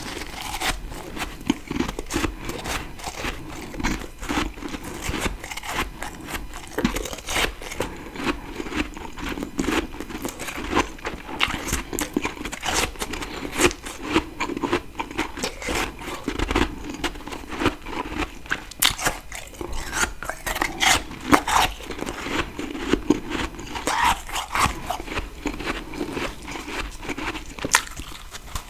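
Close-up biting and chewing of freezer frost: a dense, irregular run of crunches and crackles, with sharper individual bites standing out among them.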